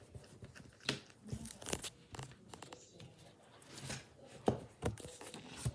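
Hand rubbing across a spiral sketchbook's paper page to blend pencil shading, making an irregular papery rustle and scuffing with a few sharper scrapes.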